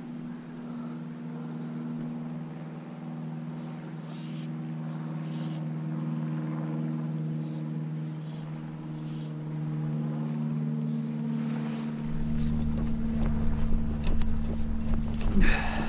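Steady drone of an engine at a constant pitch. About twelve seconds in, a deeper rumble joins it. Near the end come a few sharp clicks and a short rustle.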